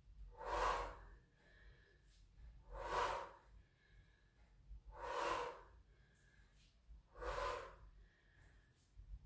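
A woman breathing hard from exertion in a workout: four heavy breaths, evenly spaced about two seconds apart.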